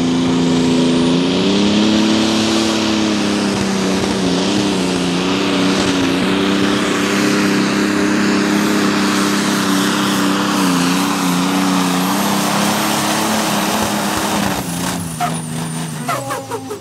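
Pro Stock pulling tractor's turbocharged diesel engine held at full throttle under load during a pull. The note is steady and high, dips briefly twice and carries a faint high whistle. About a second and a half before the end it breaks up and falls away as the throttle comes off.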